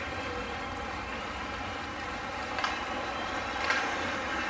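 Hockey rink ambience during play: a steady noisy hum with a couple of short sharp knocks past the middle.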